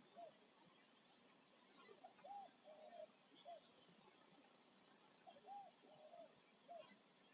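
Spotted dove cooing faintly. The call is a short phrase of three or four coos, the first rising and falling, and it comes twice about three seconds apart.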